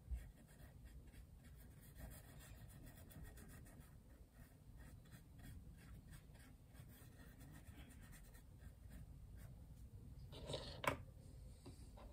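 Faint strokes and dabs of a small paintbrush on a canvas panel, many short touches in a row. There is a low thump at the very start and a sharper tap near the end.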